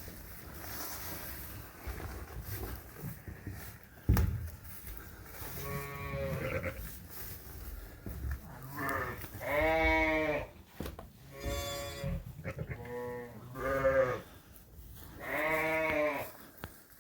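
Dorset sheep bleating in a lambing barn: about six separate bleats with wavering pitch in the second half, one noticeably higher-pitched than the others. A single sharp knock comes about four seconds in.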